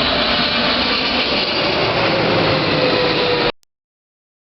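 Jet airliner passing low overhead: loud, steady jet engine noise with a whine that slowly falls in pitch. It cuts off abruptly about three and a half seconds in.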